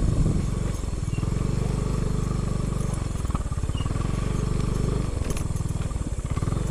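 Yamaha Mio i 125 scooter's single-cylinder engine running steadily at low revs, a low even putter.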